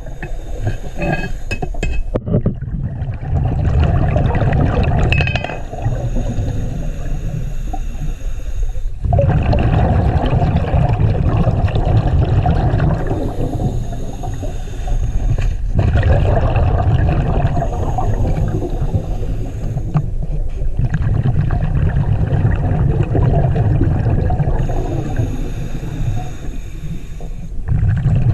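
A scuba diver breathing through a regulator underwater. Each exhale sends out bubbles as a loud rumbling gurgle lasting several seconds, broken every 5 to 6 seconds by a quieter inhale hiss through the regulator.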